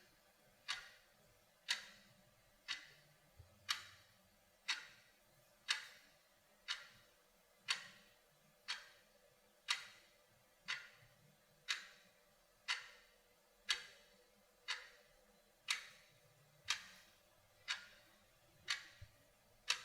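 Clock ticking steadily at one sharp tick per second.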